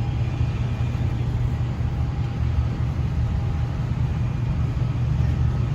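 A steady low rumble of harbour background noise, with faint, distant ships' horns holding steady tones that fade in and out over it.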